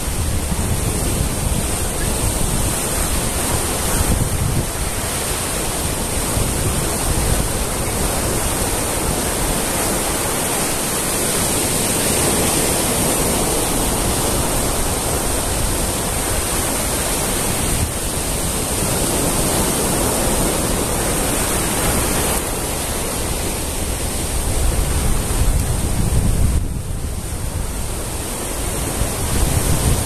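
Small waves breaking and washing in among rocks and sand in a continuous surf wash, with wind buffeting the microphone. The surf swells louder a little before the end, then drops back.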